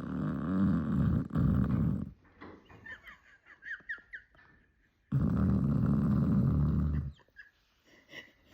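A sleeping pet snoring loudly: two long snores of about two seconds each, a few seconds apart, with faint high squeaks between them.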